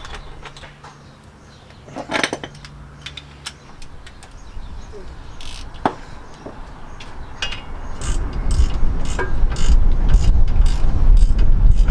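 Socket ratchet wrench clicking as the bolts on a steel diff guard's top bracket are tightened, in short irregular runs of clicks. About two-thirds of the way in a loud low rumble sets in under the clicking.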